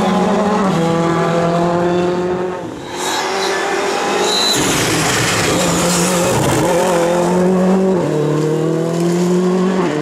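Ford Fiesta rally car's turbocharged four-cylinder engine at high revs, its pitch climbing through each gear and dropping sharply at the upshifts. Tyres squeal partway through.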